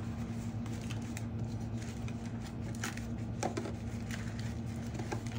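Faint rustling and crinkling as hands press sheets of phyllo dough into a disposable aluminium foil pan, with scattered small clicks, over a steady low hum.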